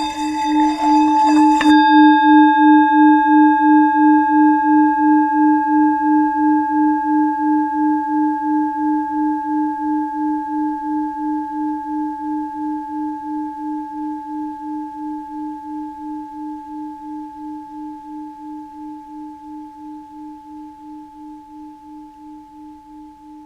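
Tibetan singing bowl: a rubbing, rushing sound with many ringing overtones builds and stops abruptly about two seconds in, leaving the bowl's low hum with a steady pulsing wobble and fainter higher overtones, fading slowly.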